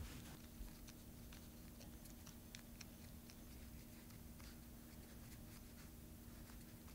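Faint, soft rustling and scattered small ticks of fingers handling and rolling a strip of puff pastry into a mini croissant, over a low steady hum.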